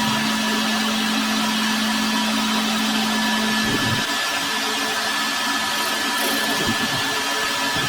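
Workshop power machinery running steadily with a constant hiss and whine; a low hum in it stops a little under four seconds in.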